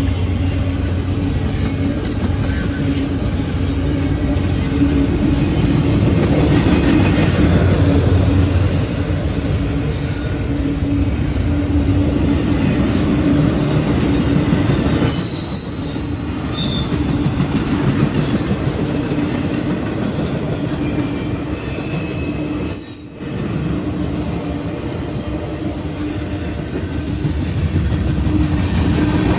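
Norfolk Southern freight train rolling past, its steel wheels running steadily on the rails, with a few brief high wheel squeals about halfway through.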